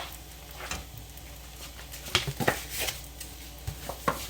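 Spatula scraping and clicking against a skillet while turning scrambled eggs, a quick run of scrapes about two seconds in and another near the end.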